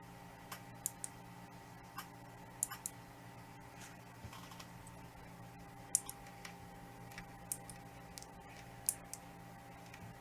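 Open desktop PC with its case fans running, a steady hum made of several held tones, with about eighteen light, sharp clicks scattered irregularly across it.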